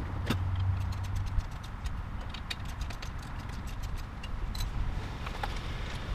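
Irregular small clicks and taps from hand work on a motorcycle's tail section, parts and fasteners being handled, over a low hum. Near the end a car pulls into the driveway.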